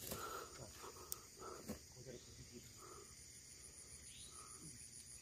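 Faint night insects, crickets, trilling steadily in a high-pitched pulsing band. A few soft rustles and light ticks come in the first two seconds, one sharper tick about a second in.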